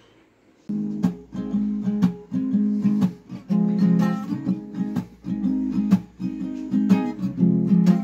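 Acoustic guitar music: strummed chords in a steady rhythm, starting just under a second in.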